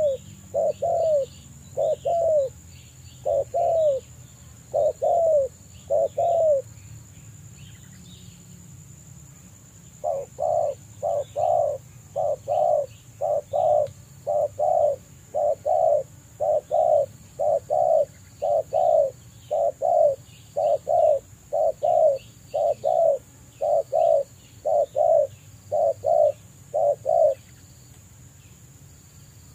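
Spotted doves cooing: loud, repeated short coos in a few clipped phrases, then, after a pause of about three seconds, a long steady run of about one and a half coos a second that stops near the end.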